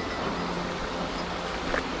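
Steady rush of a mountain stream. Faint sustained musical tones run under it and stop near the end, with a small click just before.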